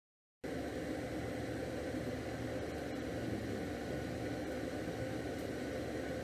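Steady machine hum with hiss and faint steady whines, cutting in abruptly about half a second in after total silence.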